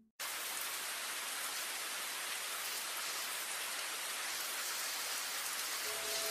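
Steady, even hiss of rain, cutting in abruptly just after the start.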